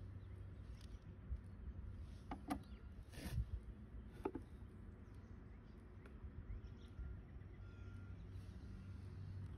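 Quiet outdoor ambience: a low steady rumble with a few faint, brief sounds about two to four and a half seconds in.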